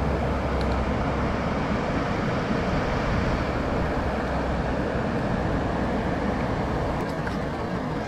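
Steady rushing outdoor noise with a low rumble underneath.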